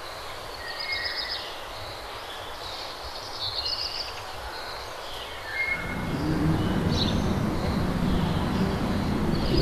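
Outdoor city ambience: small birds chirping on and off over a steady background hiss, with a low traffic rumble swelling in about six seconds in.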